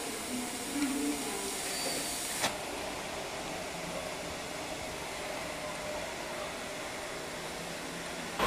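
Steady steam hiss from a standing steam locomotive. About two and a half seconds in it changes abruptly to a duller, steady rush.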